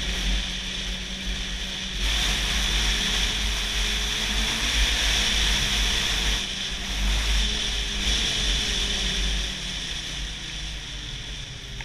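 Snowmobile engine running at speed along a snow trail, its pitch drifting slightly, with wind rushing over the microphone. It fades over the last couple of seconds as the sled slows.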